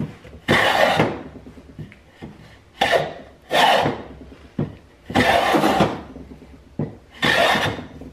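Restored Stanley Bailey No. 4 hand plane being pushed along the edge of a board, about five strokes each under a second long with short pauses between: the freshly sharpened blade, set very fine, peeling thin curled shavings.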